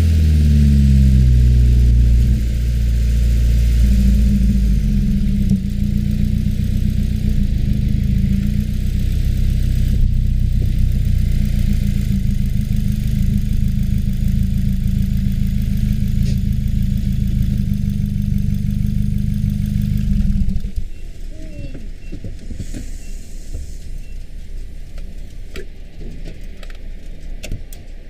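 2015 Subaru WRX's turbocharged 2.0-litre flat-four, breathing through a muffler-delete axle-back exhaust. Its revs fall over the first couple of seconds, then it runs steadily at low revs until it cuts off suddenly about 20 seconds in, the engine being switched off. A few faint clicks follow.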